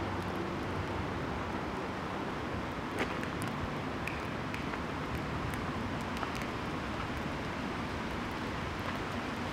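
Steady outdoor background: a low, even hum of distant traffic, with a few faint light ticks scattered through it.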